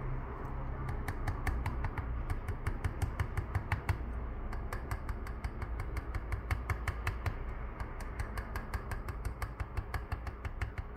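A quick, uneven run of small sharp clicks, several a second, over a low steady hum.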